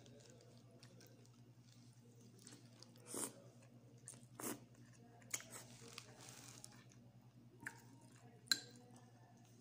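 Close-up eating sounds: chewing and crunching of a crisp cracker eaten with instant noodles, with a handful of short sharp crunches spread through. A steady low hum runs underneath.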